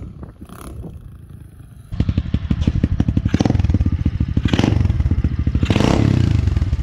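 About two seconds in, an SSR 125 pit bike's single-cylinder four-stroke engine starts up loud and close, running with a fast, even pulse. It swells briefly three times.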